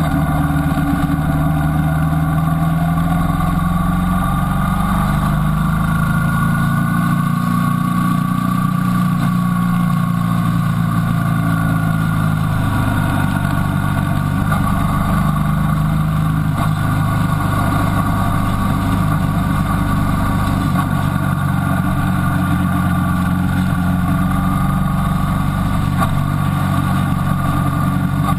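Motorcycle engine running under way, heard from on board the bike, with a steady drone whose pitch rises and falls gently with the revs.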